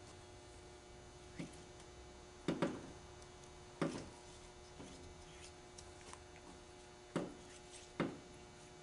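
Light clicks and taps from gloved hands working over an aluminium transmission valve body while greasing its check balls in place. There are about five clicks, scattered, over a faint steady hum.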